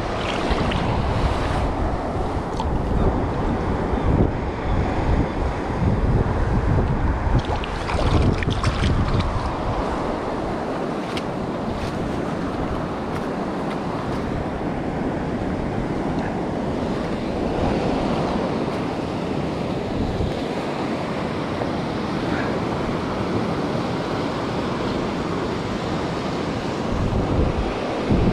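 Sea surf washing over rocks, with wind buffeting the microphone. The low wind rumble is heavier and gustier for the first ten seconds or so, then eases.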